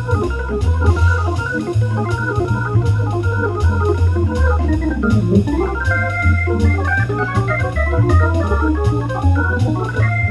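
Hammond organ music: a bass line stepping about twice a second under quick melodic runs and held chords.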